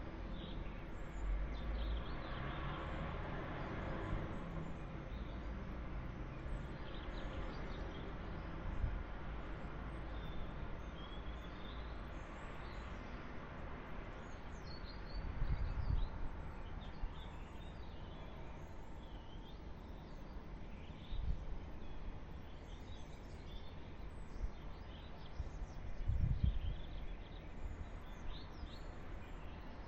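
Night-time city ambience: a steady distant traffic hum with birds chirping and tweeting throughout. A few brief low rumbles stand out, about halfway through and again near the end.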